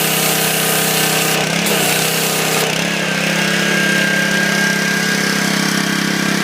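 Engine-driven pressure washer running steadily while its sandblaster spray hisses against metal, with a brief dip in the engine note about a second and a half in and a thin steady whistle joining about three seconds in.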